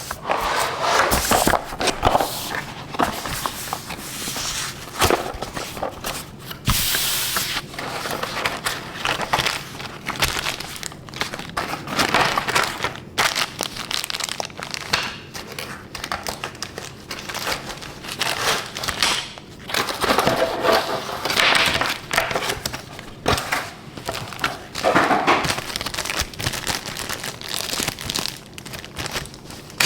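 Keyboard packaging being handled and unwrapped: plastic and paper crinkling and rustling, with scattered knocks and clicks.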